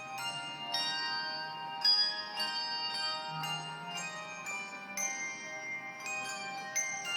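A set of tuned bells ringing a melody, one struck note after another, each ringing on and overlapping the next. One stroke is sharper and louder about two seconds in.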